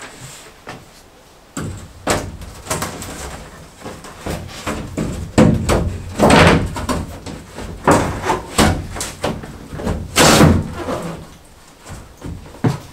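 Hollow knocks and thumps of shower wall panels and the shower base as a person steps about in the base and presses the panels against the wall studs, with several louder thumps in the middle.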